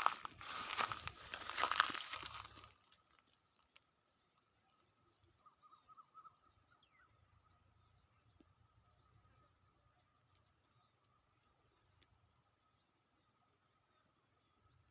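Close rustling and crunching of leaves or brush for about the first two and a half seconds, then a steady, faint trilling of insects.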